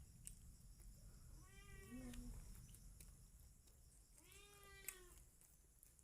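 Two faint animal calls, each just under a second long with a slight rise and fall in pitch, about two and a half seconds apart.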